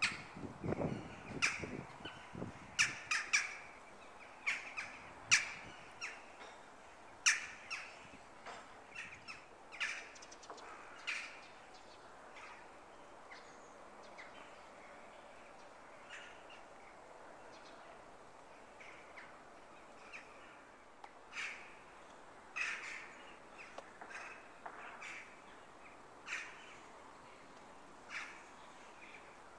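Crows cawing, many short calls close together through the first dozen seconds, then only a few scattered ones, and another run of calls a little past the twentieth second.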